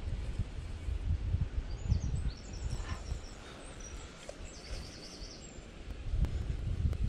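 A small bird singing trills of short, high chirping notes between about two and five seconds in, over an irregular low rumble of wind and handling noise on the microphone.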